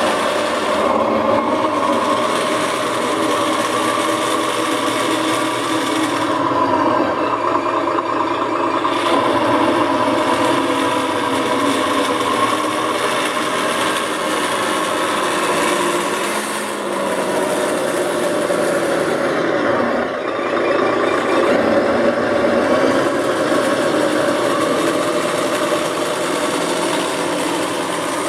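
ESS Sense One sound module playing a Scania truck diesel engine sound file through its speaker, running steadily, its pitch dipping and rising a few times.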